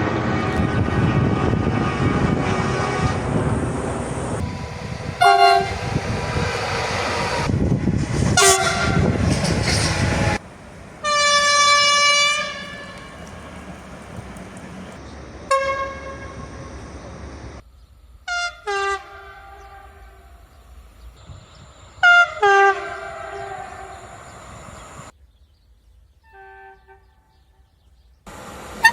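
Train horns in a run of separate moments. First a train passes close by, its wheel and engine noise loud, with two short horn blasts. Then come a horn blast of about two seconds, a single short toot, two pairs of quick short blasts, and faint short blasts near the end.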